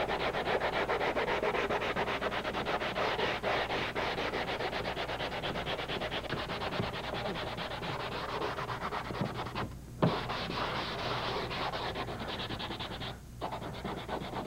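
Hand sanding of hardened body filler on a car's rocker panel with a folded sheet of finer-grit sandpaper, in rapid, even back-and-forth strokes. The strokes pause briefly about ten seconds in, with a single light knock, and again shortly before the end.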